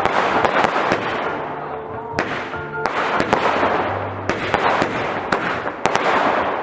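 Fireworks display: a rapid, irregular series of sharp bangs over continuous crackling.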